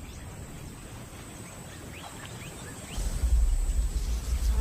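Quiet bush ambience with a few short, rising bird chirps. About three seconds in, a deep low rumble starts suddenly and carries on.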